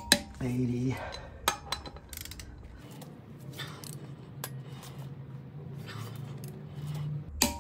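Click-type torque wrench and socket on the bolts of a motorcycle wheel's belt pulley: small metallic clinks as the socket goes onto the next bolt, then a sharp click near the end as the wrench breaks over at its setting of 80 pounds. A low steady hum sits underneath through the middle.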